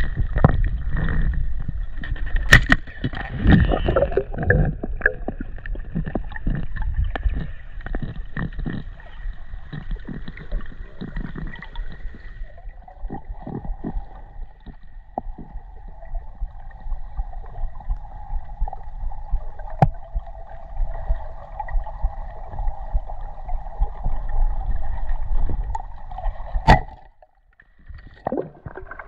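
Water sloshing and gurgling close to the camera, with scattered clicks and knocks. A steady hum runs through the second half and cuts off suddenly near the end.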